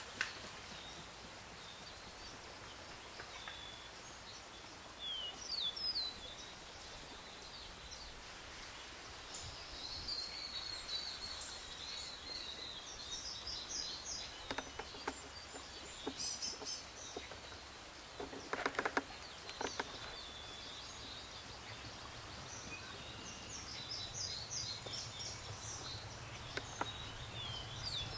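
Small birds chirping and singing on and off over a steady outdoor background hiss, with a short burst of sharper, louder calls a little past the middle.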